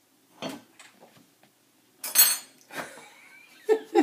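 A mixing bowl being handled while soda bread dough is worked by hand: a few short knocks and scrapes, the loudest a sharp noisy burst about two seconds in. A short voice sound comes near the end.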